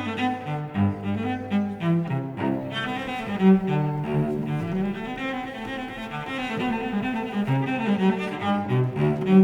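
Instrumental music led by cello and low bowed strings, several notes sounding together and changing in steady succession.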